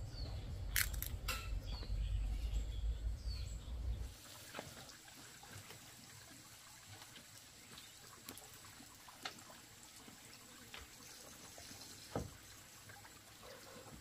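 Water trickling from a pipe into a metal basin, with scattered small clicks and knocks. For the first four seconds a loud low rumble and a few short high chirps lie over it, then cut off suddenly.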